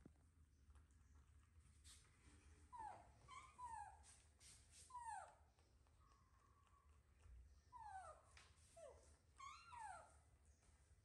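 Baby macaques calling: short calls that slide down in pitch, several in quick succession in two bouts, one starting about three seconds in and another about eight seconds in.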